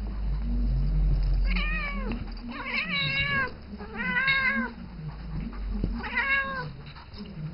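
Siamese cat meowing four times, each call rising then falling in pitch; the middle two are the longest. The cat is calling to the young ferret she plays with.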